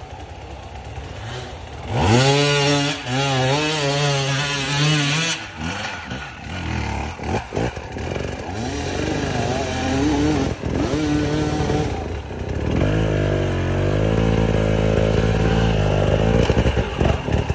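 Enduro dirt bike engine revved hard in repeated bursts, its pitch rising and falling, as the rider fights for traction up a steep, muddy forest climb. It gets loud about two seconds in and runs heavier and steadier near the end.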